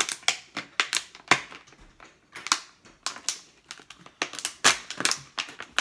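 Thin plastic water bottle crackling and crinkling in the hands, in many irregular sharp clicks, as a stick is pushed through a hole cut in its side.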